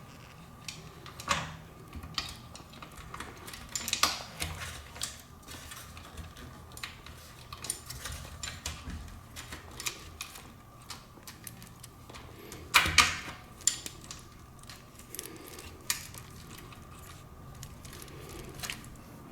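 Light clicks, taps and rattles of e-bike wiring and small parts being handled during reassembly of a Lectric XP 2.0 controller, with louder clatters about a second in, about four seconds in and around thirteen seconds in.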